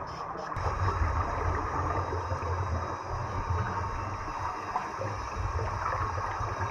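Underwater sound in a swimming pool: a steady, muffled low rumble with the gurgle of a scuba diver's exhaled bubbles rising from the regulator; the rumble grows louder about half a second in.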